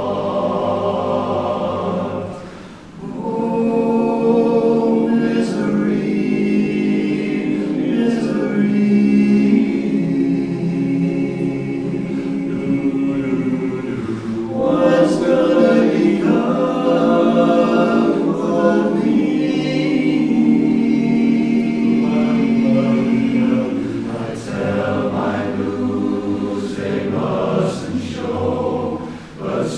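Barbershop chorus singing a cappella in close harmony, with a brief break between phrases about three seconds in and another near the end.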